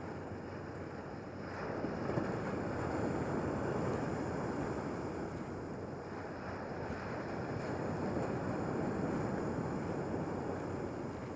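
Sea waves breaking on the shore, the surf swelling twice: about two seconds in and again later.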